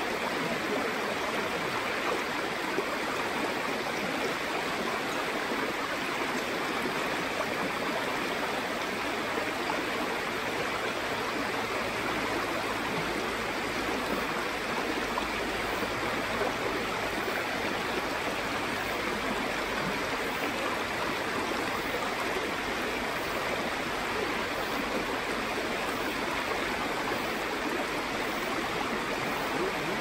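Mountain valley stream, water rushing in a steady, unbroken wash.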